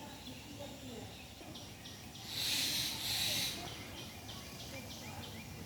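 Outdoor ambience with a short chirping call that repeats about three times a second. Near the middle comes a loud, hissing rush in two parts lasting about a second.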